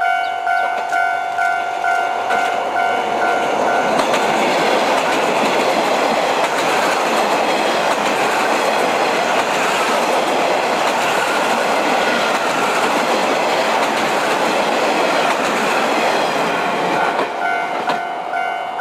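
Eight-car train of KiHa 56 diesel railcars passing close by, engines running and wheels clattering over the rail joints. The sound swells in about four seconds in, holds, and begins to fade near the end. A rhythmic ringing of about three strikes a second is heard at the start and again near the end.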